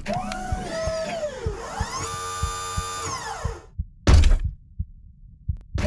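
Synthesized sci-fi sound effects: electronic whirring tones that sweep up and down in pitch, holding a steady hum in the middle, over a low regular pulse. A heavy thud comes about four seconds in.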